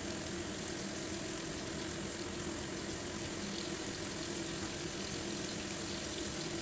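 Fish shallow-frying in oil in a pan on a gas burner: a steady sizzle over a steady low hum.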